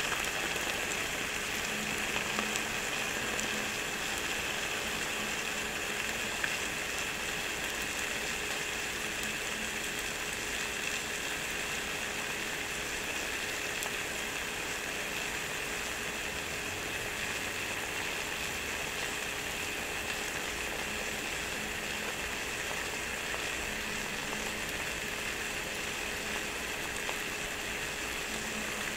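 Croissant dough sizzling inside a closed rotating waffle maker, a steady crackle that sounds like rain.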